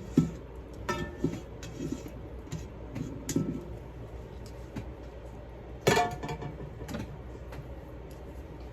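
Background music of sparse plucked-string notes, the strongest note about six seconds in.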